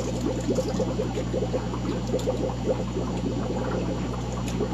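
Aquarium water bubbling and gurgling steadily, a dense run of tiny pops, over a low steady hum.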